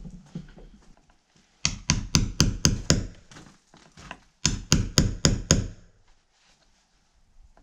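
Hammer striking a wood chisel into a log wall in two runs of quick blows, about four a second, the first of about six blows and the second of about five, with a short pause between. The chisel is cutting out and enlarging a recess in the log so a porch light will fit.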